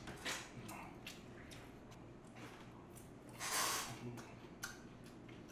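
Mouth sounds of eating noodles: one airy slurp lasting about half a second, about three and a half seconds in, as thin wheat noodles are sucked up from a bowl of broth. A few small clicks and smacks of chewing and chopsticks come around it.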